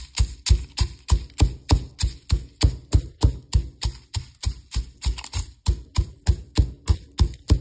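Stone pestle pounding toasted sticky rice and kaffir lime leaves in a stone mortar, a steady rhythm of sharp knocks about three a second: the toasted rice being ground into khao khua powder.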